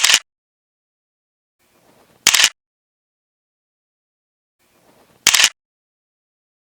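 Camera shutter clicks, three times about two and a half to three seconds apart. Each is a short, sharp snap with a faint soft swish just before it, against silence.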